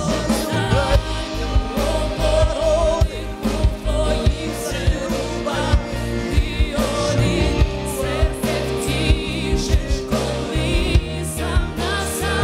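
A worship song: a man singing a Ukrainian worship song into a microphone over instrumental accompaniment with a steady beat.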